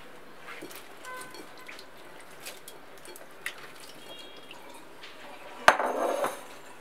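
Strawberries being washed in water in a glass bowl: scattered small clicks and drips of wet fruit being handled, then a sharp knock and a brief splash near the end.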